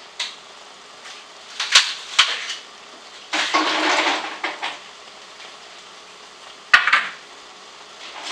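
Ice cubes being worked loose and dropped into a glass: a few separate knocks and clinks, a rattling clatter lasting about a second in the middle, and one sharp knock near the end.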